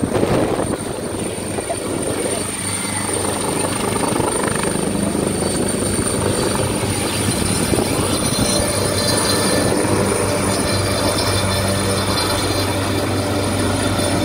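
AgustaWestland AW139 twin-turbine helicopter at full power, lifting off and climbing away: steady rotor noise with a constant high turbine whine over it.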